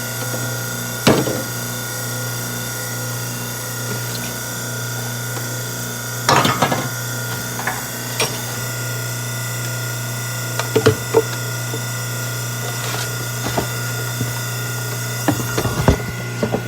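Garbage disposal running with a steady motor hum, with scattered knocks and rattles as it grinds.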